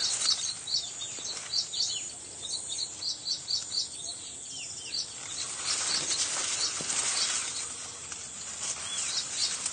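Open-field ambience: a string of short, high chirps repeating several times a second, with a few falling bird-like calls. About halfway through a rustling hiss swells up and then fades again near the end.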